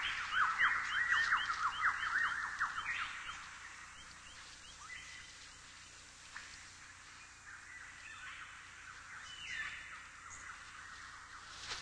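Birds calling: a rapid series of short, falling chirps for the first few seconds, then only faint scattered calls.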